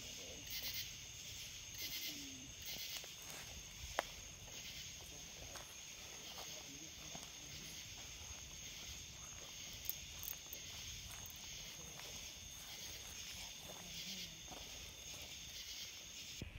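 A steady chorus of night insects making a shrill, high drone, with pulsing calls in the first few seconds. There is a single sharp click about four seconds in.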